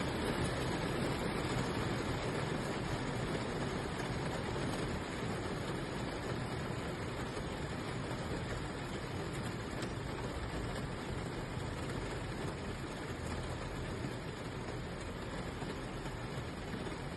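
Steady rain, an even unbroken hiss with no single sound standing out.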